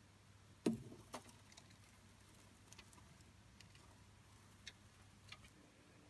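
A few short clicks and taps of metal tweezers handling the enclosure, the loudest just under a second in and another soon after, then a handful of faint ticks over a quiet background.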